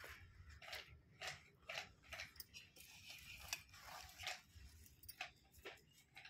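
Faint, irregular clicks and light rustling from small objects being handled, roughly one every half second to a second.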